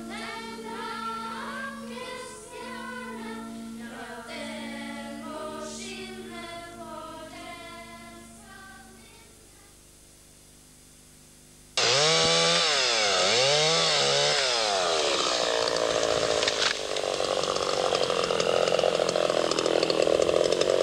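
Background music fades out over the first nine seconds. About twelve seconds in, a chainsaw starts abruptly, revving up and down a few times and then running steadily as it cuts into the spruce being felled for a Christmas tree.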